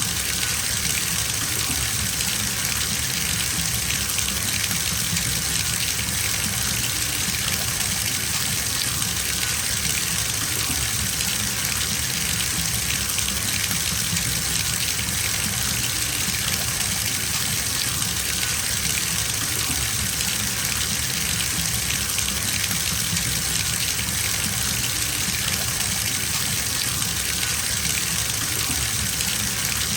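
Bathtub filling from a running tap: a steady gush of water pouring into the tub, even and unbroken.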